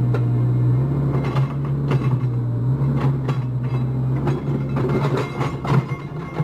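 Caterpillar 304 mini excavator's diesel engine running with a steady low drone, with a string of sharp knocks and cracks starting about a second in and the loudest one at the very end.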